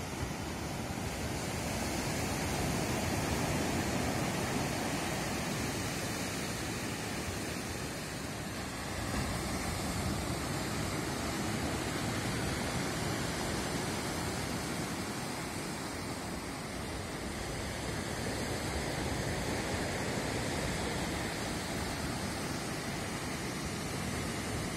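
Rough sea surf breaking on a pebble beach: a steady rushing wash that swells and eases slowly as the waves come in.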